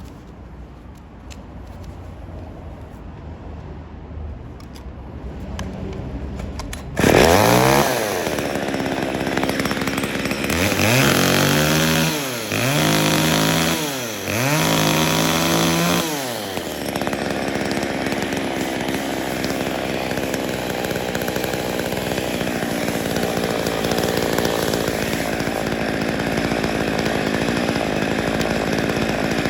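Kyoritsu GC31 two-stroke engine chainsaw starting about seven seconds in, after some low rumble and clicks. It is revved up and down three times, then runs steadily.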